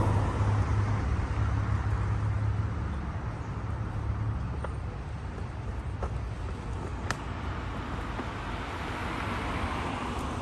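City street traffic: a motor vehicle's low engine hum that fades over the first few seconds, a few faint clicks in the middle, and another vehicle's noise swelling near the end.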